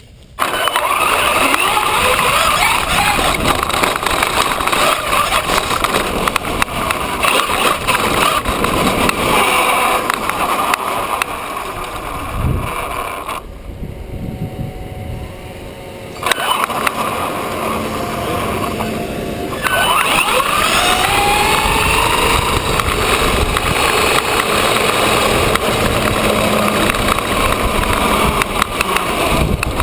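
Brushless electric motor and drivetrain of a Traxxas E-Revo RC truck on a 4S LiPo whining, rising and falling in pitch with the throttle, over tyre noise on grass, gravel and asphalt and wind on the truck-mounted camera. It goes quieter for a few seconds about halfway.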